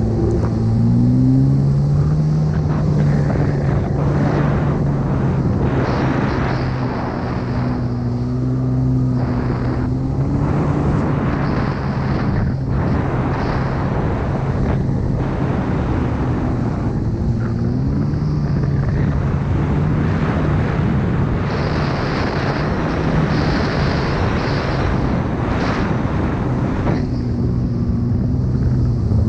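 Two-stroke stand-up jet ski engine running under way, its pitch stepping up several times as the rider opens the throttle, over a constant rush of wind and water spray.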